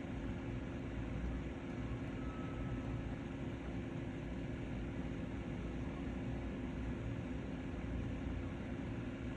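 Steady room tone: a low, even hum with one constant tone in it, no distinct events.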